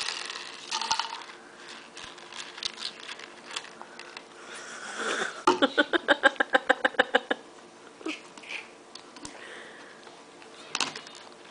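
Snack puffs shaken out of a container onto a high-chair tray, rattling and then clicking as they land. About halfway, a baby lets out a rapid run of short voiced pulses, about six a second, for nearly two seconds.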